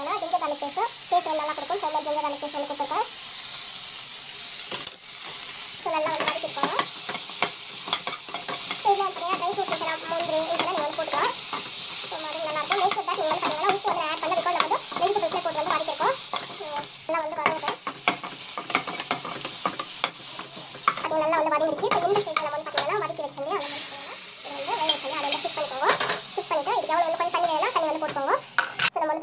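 Chopped onion, green chilli and coriander sizzling in oil in a non-stick frying pan, stirred and scraped with a slotted metal spatula: a steady frying hiss with irregular scraping strokes of the spatula on the pan.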